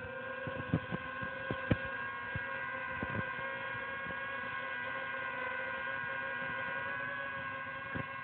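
DJI Ryze Tello mini quadcopter hovering just after takeoff, its propellers giving a steady high-pitched whine, with a few sharp clicks in the first three seconds.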